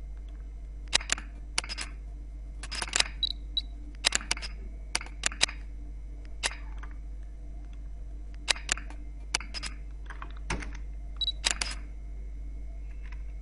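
Camera shutter sound effect clicking again and again, often two or three quick clicks at a time, about once every second or so, with a short high beep twice.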